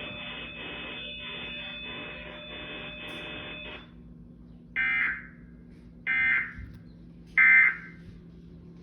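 A steady, pulsing electronic buzz of several tones cuts off about four seconds in. It is followed by three short, loud digital data bursts about 1.3 seconds apart: the Emergency Alert System's end-of-message code, sent three times to close the required monthly test.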